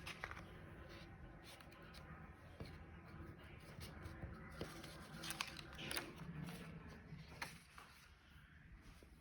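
Faint room tone: a low steady hum with a few soft scattered clicks and rustles.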